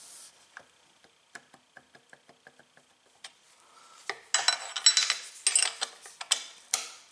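Metal hand tools clinking and rattling as 5/16 and 8 mm tools are handled and tried on the bicycle crank bolt: a run of light clicks, then a louder stretch of clattering about four seconds in.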